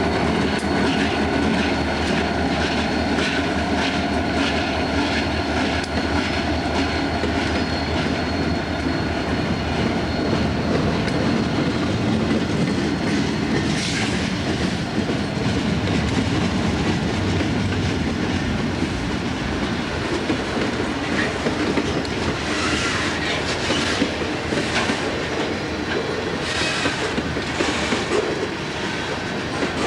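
Railroad cars rolling past, wheels clicking over rail joints in a steady rhythm over a continuous rumble. Brighter, higher-pitched flares of wheel noise come about halfway through and again near the end.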